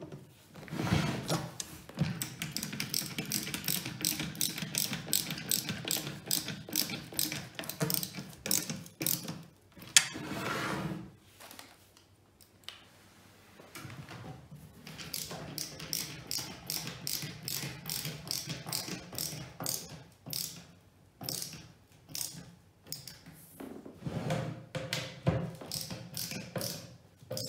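A ratcheting hand screwdriver clicking rapidly as screws are driven into a particleboard IKEA MALM drawer. The clicking runs in long spells, stops for a couple of seconds about halfway through, then resumes and thins out to scattered clicks near the end.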